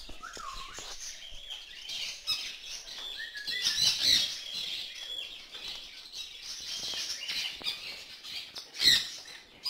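Many parrots chirping and chattering together in overlapping high calls. The calls swell a few seconds in, and a sharp loud squawk or knock comes near the end.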